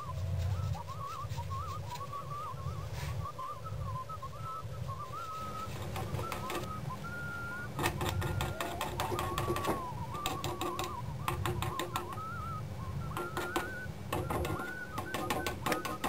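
Paintbrush dabbing and tapping on a wooden painting panel, a quick run of small taps from about halfway through. A wavering, whistle-like high tone runs throughout over a low rumble.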